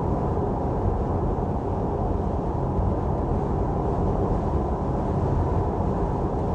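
Steady low road and wind noise inside the cabin of a Tesla Model 3 at about 70 mph with roof racks fitted. There is no whistle or other added noise from the racks: the owner judges it no louder than without them.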